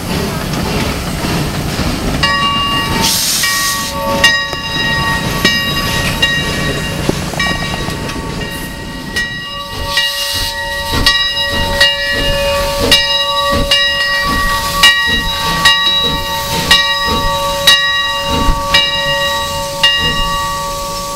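Replica 4-4-0 steam locomotive Leviathan moving slowly, its bell ringing about once a second from about two seconds in, over steam hissing and a low chuffing from the engine.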